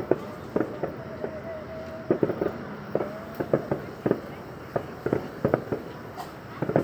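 Aerial fireworks display: shells bursting in a rapid, irregular series of bangs, at times several a second.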